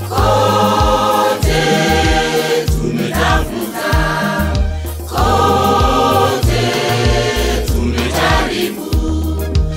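Mixed gospel choir singing a Swahili song in harmony, in phrases with short breaks, over a deep bass line with a regular beat.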